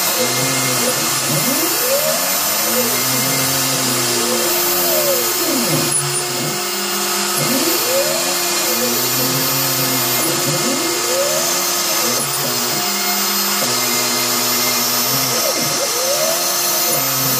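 Home-built CNC router milling wood: the spindle runs with a steady hiss while the stepper motors whine in pitches that rise and fall over and over as the axes speed up, slow down and change direction.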